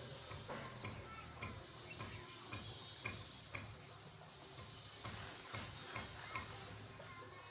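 Light, sharp ticking clicks, about two a second and fairly even, over a steady low hum.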